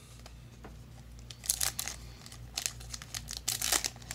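Foil wrapper of a Yu-Gi-Oh! Toon Chaos booster pack crinkling and tearing as it is ripped open by hand, in clusters of short crackles starting about a second and a half in.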